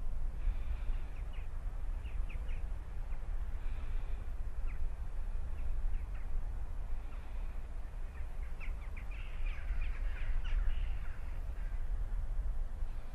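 Wild birds calling in short, high chirps and chatters, scattered throughout and thickest about nine to eleven seconds in, over a steady low rumble.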